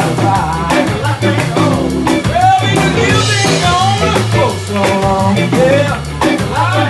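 Small live band playing an upbeat soul/R&B groove on drums, organ and electric guitar, with a voice singing over it.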